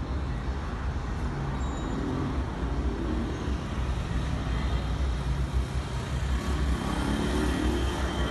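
Steady, deep roar of an Airbus A320-214's twin CFM56 turbofan engines as the airliner climbs away after takeoff.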